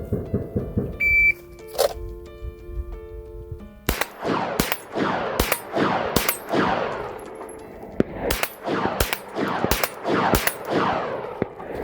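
A shot timer beeps once. About three seconds later comes a string of pistol shots, each with a decaying echo, fired at roughly two shots a second with a short pause midway.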